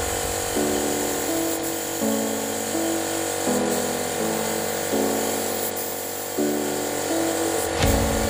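Background electronic music: a buzzy synth repeats a short chord pattern that changes about every second and a half, with no bass until a heavy low beat comes back in near the end.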